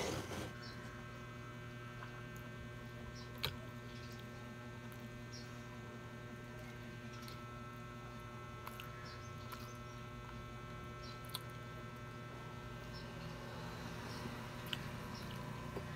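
Steady electrical hum, with a few faint clicks and mouth sounds from eating rice by hand.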